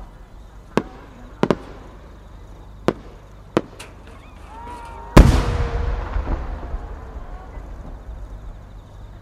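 Fireworks: several short sharp cracks in the first few seconds. About five seconds in comes the heavy boom of a large warimono (round split-type) aerial shell bursting, which rumbles and echoes away slowly.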